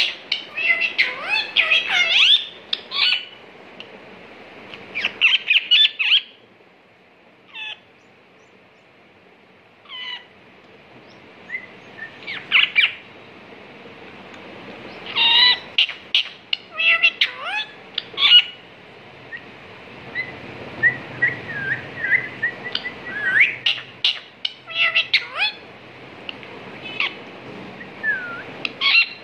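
Rose-ringed parakeet calling: clusters of short, sharp squawks and chirps broken by pauses of a few seconds, with a run of quick little rising chirps about two-thirds of the way through.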